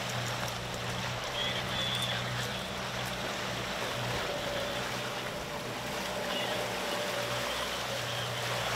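Suzuki outboard motor running steadily at trolling speed, a low even hum under the rush of water along the hull.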